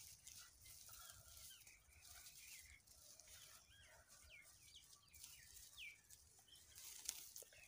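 Faint chirping of small birds, a run of short rising and falling calls, over soft rustling of dry rice straw being twisted into rope by hand, with a sharp crackle of straw about seven seconds in.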